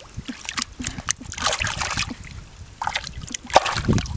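Splashing and sloshing of shallow muddy water as hands grope for a fish, in irregular bursts, the loudest about three and a half seconds in.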